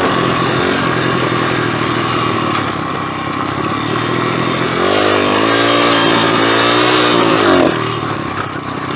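Pit bike engine running while riding, its pitch rising about five seconds in as it revs up, held for a few seconds, then dropping back near the end.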